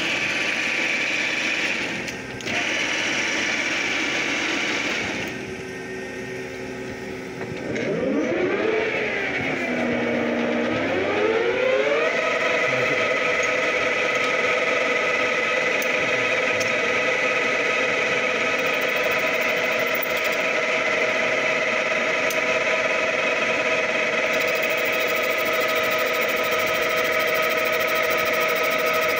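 Stanko 16K20 three-phase lathe running, its headstock gears whining. About eight seconds in, the pitch rises, falls and rises again as the spindle speed changes, then settles into a steady whine of several tones.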